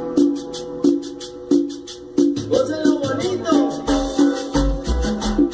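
Cumbia music playing, with a quick, even rhythm of high shaker-like ticks over melody notes. Deep bass pulses come in strongly about four seconds in.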